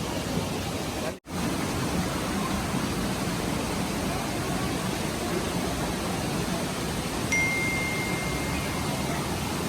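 Steady rushing background noise, cut off by a brief dropout about a second in; a little after seven seconds a single steady high tone starts and holds for about two seconds.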